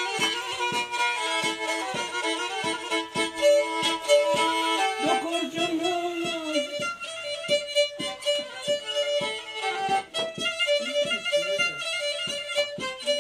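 Black Sea kemençe, a small upright three-string bowed fiddle, playing a fast folk dance tune of quick repeated notes, over a steady tapping beat.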